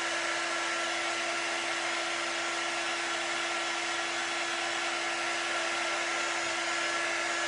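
Handheld craft heat tool blowing steadily with a constant hum, drying freshly applied permanent ink on a glass.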